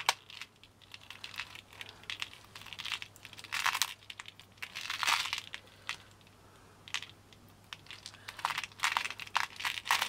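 Pearl beads clicking and rattling against one another and the tray as hands pick apart a pearl necklace, in irregular bursts with a quieter spell in the middle.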